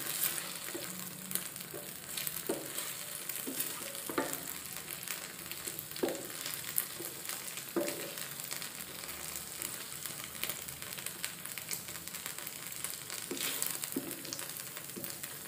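Chili sauce sizzling in a frying pan while a wooden spatula stirs it through fried egg halves and vegetables, with occasional sharp knocks and scrapes of the spatula against the pan.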